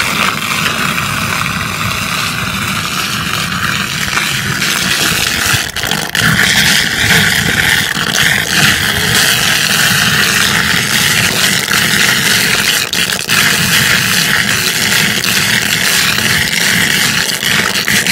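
Standing rainwater draining off a flooded rooftop floor: a steady rush of water, with a few brief knocks.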